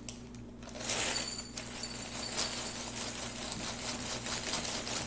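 Fruity Pebbles cereal poured into a bowl: a dense rattling patter of small flakes, starting about a second in and running on steadily.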